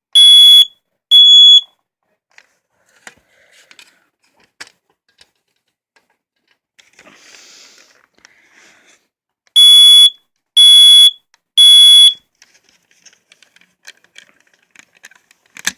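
Family Gard smoke detector's piezo horn sounding its alarm in code 3 groups of three shrill, piercing beeps, each about half a second long at roughly one a second. The last two beeps of one group are heard at the start, then after a pause of about eight seconds a full group of three.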